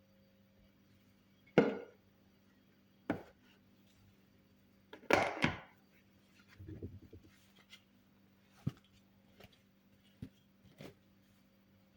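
Kitchen handling sounds: scattered knocks and clatter, loudest about a second and a half in and again around five seconds in, with smaller clicks after.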